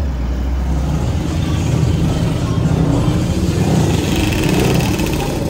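Engines of cars and quad bikes driving past on a city street. The sound grows louder after about a second and a half, and one engine's pitch rises about four seconds in.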